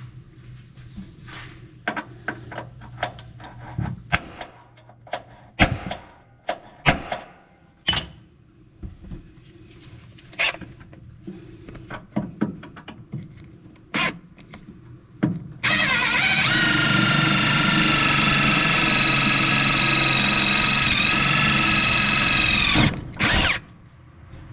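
Handling clicks and knocks of tools and metal parts, then a power drill runs steadily at high speed for about seven seconds, its pitch sagging briefly under load before it stops.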